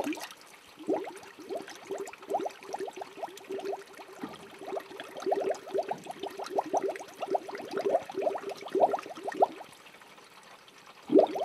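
Water bubbling: a rapid string of small bubble gurgles that dies away near the end.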